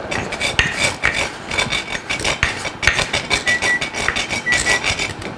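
Whole nutmeg grated on a fine rasp grater, with quick, irregular scraping strokes. In the second half a kitchen timer beeps about once a second, signalling that the 10-minute cooking time is up.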